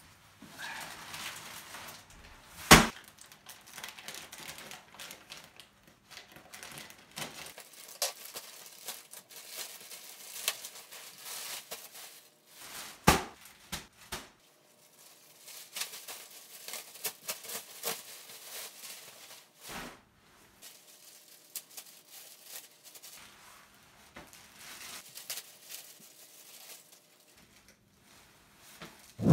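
Plastic mailer bag and plastic-wrapped clothes rustling, crinkling and tearing as a parcel is opened and unpacked by hand, with a few sharp knocks, the loudest about three seconds in.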